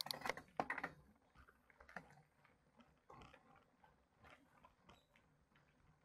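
Mountain bike clattering and ticking over a rough trail: a burst of sharp clicks and rattles in the first second, then scattered faint ticks and knocks.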